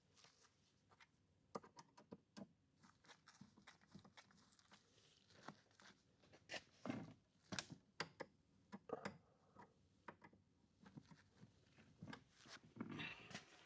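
Faint, irregular clicks and light knocks of hands and tools working a neutral wire into a solar inverter's wiring terminal.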